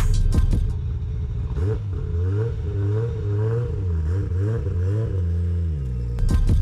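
Nissan Skyline R32's engine revving up and down several times in quick swells as the car pulls away at low speed, then settling to a steady note. Music plays briefly at the start and returns at the very end.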